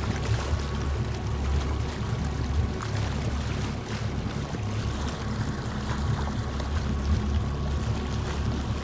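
Motorboat engine running steadily, with water rushing and splashing past the hull and the towed raft.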